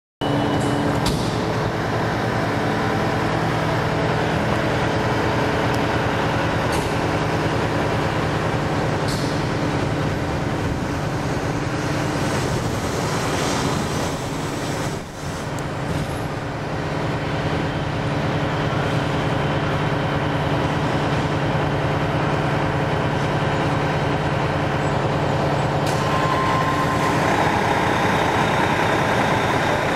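2005 Seagrave fire engine's diesel engine idling steadily with a low, even hum, with a few short sharp sounds scattered through and a steady higher tone joining near the end.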